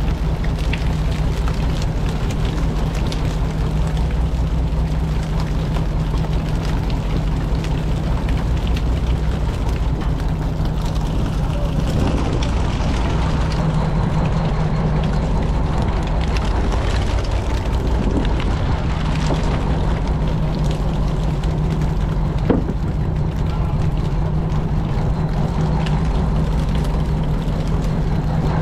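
Fishing boat's engine running at a steady drone, with a single sharp knock about three-quarters of the way through.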